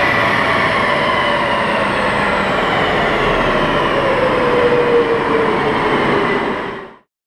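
BMW X5 3.0d's straight-six turbodiesel and its tyres whining on a four-wheel-drive rolling road, the whine falling slowly in pitch as the car and rollers slow down. The sound fades out and stops near the end.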